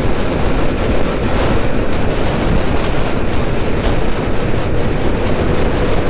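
Motorcycle cruising at a steady speed: heavy wind rush over the microphone, with the engine's steady hum underneath.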